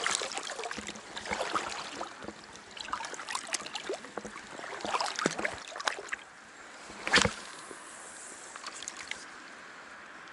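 Water sloshing and trickling with small splashes in the reedy shallows, crackling irregularly, then one loud sharp click a little after seven seconds, followed by a quieter steady hiss.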